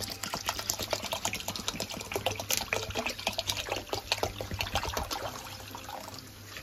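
Water poured from a bottle into a steel pot of washed basmati rice, splashing onto the rice and filling the pot; the pouring eases off near the end.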